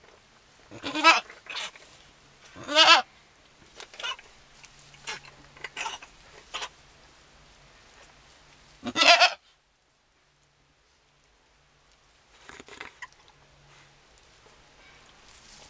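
Goat bleating with a wavering voice: three loud bleats about one, three and nine seconds in, with shorter, softer calls between. A few seconds of near silence follow the third bleat before softer calls resume.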